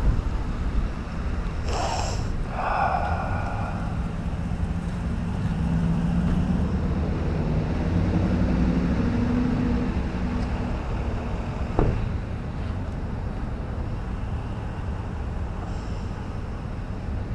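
Motorcycle engine running at low speed in traffic with wind rumble on the helmet microphone, the engine note rising and falling between about five and ten seconds in. A brief higher-pitched sound about two seconds in and a single click near twelve seconds.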